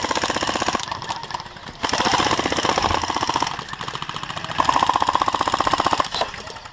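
Airsoft electric guns firing on full auto in long strings: a rapid, even ticking of about fifteen to twenty shots a second. It eases off briefly about a second in and again near the end.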